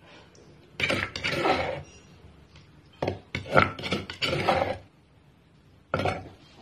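Metal spoon scraping and clinking against a stainless steel bowl while tossing a leafy salad, in three bursts: a short one about a second in, a longer one from about three seconds in, and a brief one near the end.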